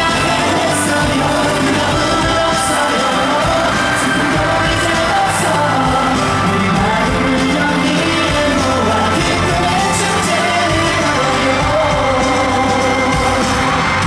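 Pop song with singing, played loudly over a stadium concert sound system.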